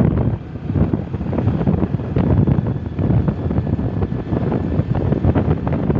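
Loud wind buffeting the microphone of a moving vehicle, over a low road and engine rumble.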